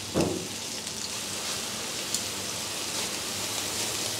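Veal sweetbread fillets sizzling in oil in a non-stick frying pan: a steady crackling hiss with a few faint pops. A brief low sound comes just after the start.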